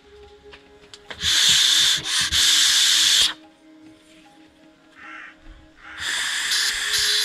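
Hissing blasts of pressurised spray blowing out parts of a TT-R250 motorcycle carburetor during cleaning. One blast starts about a second in and lasts about two seconds with a brief break, and another starts near the end. A faint steady hum runs underneath.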